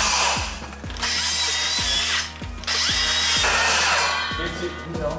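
Circular saw cutting a wooden post to the measured length. The saw noise stops about half a second in, then comes back in two more runs of about a second each, dropping off between them. Background music with a steady beat plays underneath.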